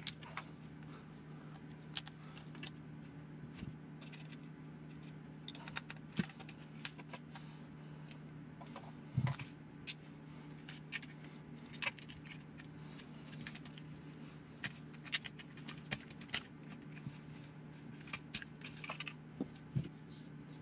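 Scattered light clicks and clatter of small plastic and metal RC buggy parts and tools being handled on a workbench, over a steady low hum.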